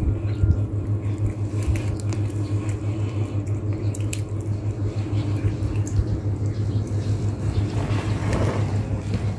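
Cats chewing cooked chicken wings: irregular small crunches and clicks of teeth on bone and gristle, over a steady low hum.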